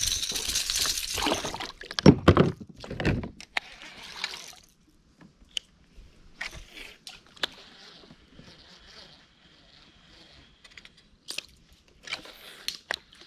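Water splashing and dripping around a small snapper hauled out on the line, with a heavier splash about two to three seconds in. This is followed by scattered light clicks and knocks from handling the rod, reel and kayak.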